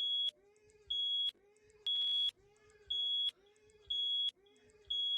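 Electronic alarm beeping: a high, single-pitched beep about once a second, each beep a little under half a second long, six in all. A crackle of noise rides over the third beep.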